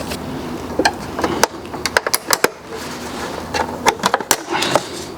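Small screwdriver and plastic reel parts clicking and tapping irregularly, a dozen or so sharp clicks, as the chasing reel is worked apart.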